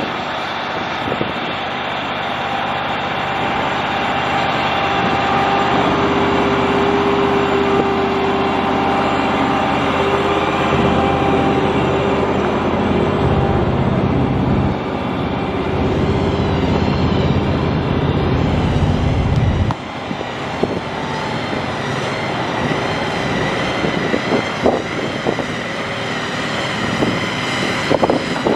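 Large diesel engines running steadily near a shed-hauling trailer: the truck's diesel and the trailer's hydraulic generator. About twenty seconds in, the heavy low engine sound cuts off abruptly, leaving a fainter running engine with scattered short ticks.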